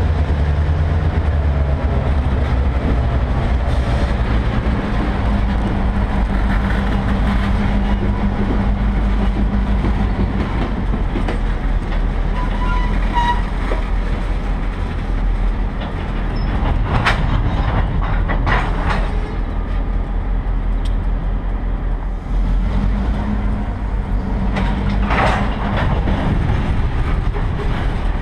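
Freight train of open-top hopper cars crawling past, with a steady low rumble of wheels on rail. A brief squeal comes about halfway through, and there are a few sharp metallic bangs in the second half.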